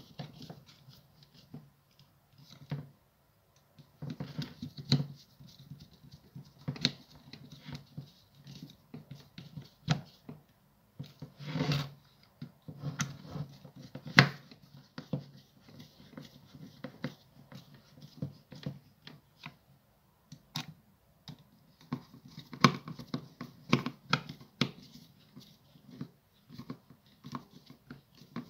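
A hand screwdriver turning the small screws of a Makita cordless impact driver's plastic housing: irregular scratchy clicks and taps, with a longer scrape about twelve seconds in and knocks as the tool is handled on a wooden board.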